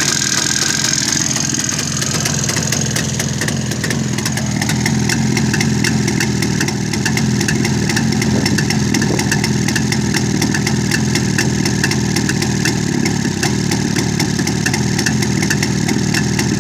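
Engine idling steadily with a fast, regular knock running through it. The knock is the one the title blames on the head gasket.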